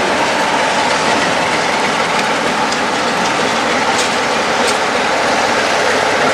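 Rake of locomotive-hauled passenger coaches rolling past close by: a loud, steady rush of wheels on the rails, with a few faint sharp high ticks about four seconds in.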